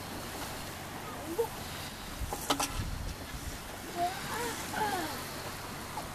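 Wind rumbling on the microphone over the wash of choppy lake water, with a few short distant calls that rise and fall in pitch, and one sharp click about two and a half seconds in.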